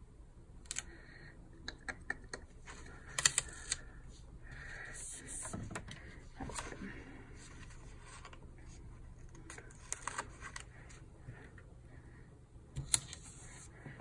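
Paper and sticker handling on a planner page: scattered light taps, clicks and short crinkly rustles as stickers are positioned and pressed down.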